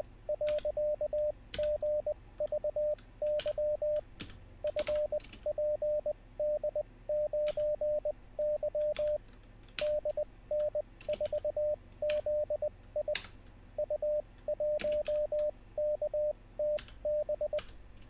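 Computer-generated Morse code: a 600 Hz tone keyed in dits and dahs, letters sent at 20 wpm character speed with stretched Farnsworth gaps for an effective 13 wpm, forming random code groups. Computer keyboard keystrokes click among the tones as the copied characters are typed in. The code stops shortly before the end.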